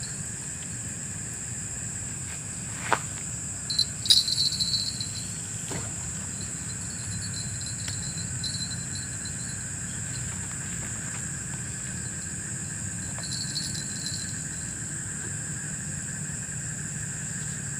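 Steady, high-pitched chirring of night crickets and insects. A sharp click comes about three seconds in, and a brief rattle about a second later.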